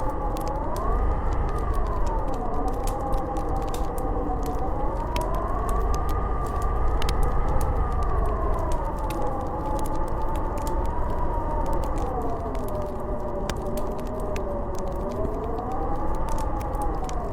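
Howling blizzard wind, a whistling tone that slowly rises and falls over a low rumble, with the scattered crackle of a wood fire.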